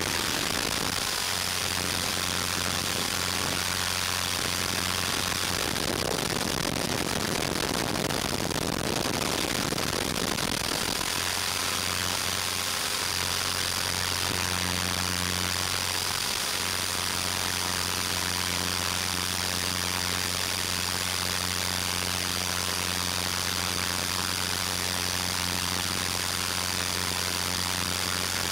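A 450-size electric RC helicopter in flight, its rotor and brushless motor making a steady hum with a high whine, under heavy hiss from the analog video link's audio. For a few seconds about a third of the way in, the steady hum gives way to rougher noise.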